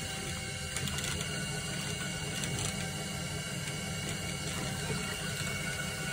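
Potter's wheel running: a steady mechanical whir with a low, wavering hum and a few faint clicks.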